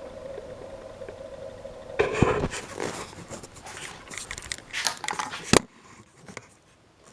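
A faint steady hum, then about three seconds of scraping and rustling handling noise with scattered clicks, ending abruptly on a sharp click.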